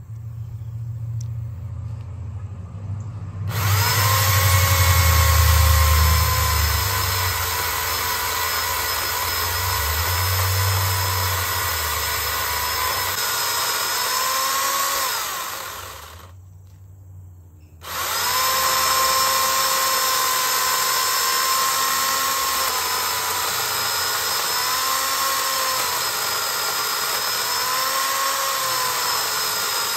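Sun Joe corded electric chainsaw running with a steady whine as it cuts into the base of a tree trunk. It stops for about two seconds midway and starts again, its pitch dipping briefly several times as the chain bites into the wood. A low rumble sits under it in the first half.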